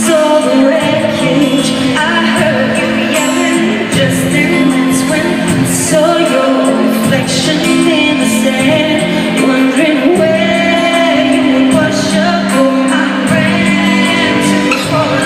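A female singer performing a pop ballad live with band accompaniment, heard in a large concert hall with a reverberant sound.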